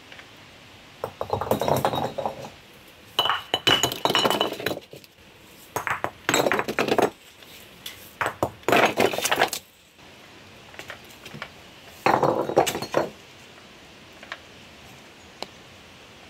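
Loose stones knocking and clinking against one another in five separate bursts, each about a second long, with short ringing clinks in the second burst.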